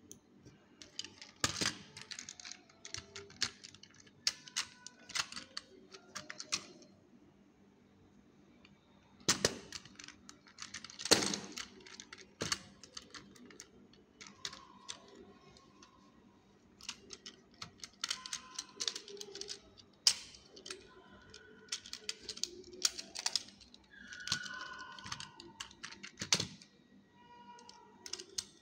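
Scattered clicks and taps of small plastic parts being handled and pried apart as a toy drone is dismantled. They come in bursts, with the sharpest knocks a little over ten seconds in.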